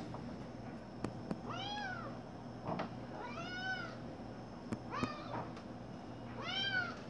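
Domestic cat meowing four times, begging to be let out the door; the third call is short.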